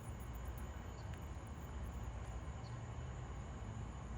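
Faint, steady outdoor night ambience: a low rumble under a thin, steady high drone of insects.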